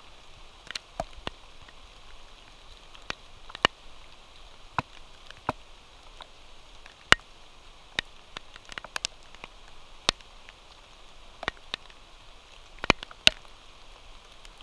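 Light rain: scattered raindrops tapping close to the microphone as irregular sharp ticks over a faint steady hiss.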